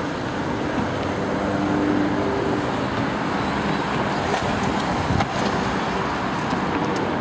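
Steady road traffic noise in a city street, with cars passing.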